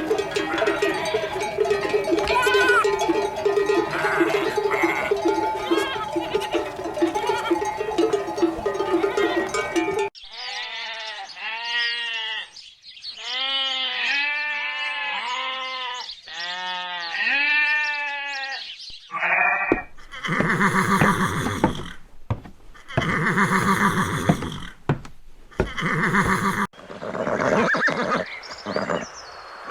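Farm animal sound clips in sequence: bleating over background music with a bell for about ten seconds, then a run of wavering, pitched bleats, then several louder, harsher calls.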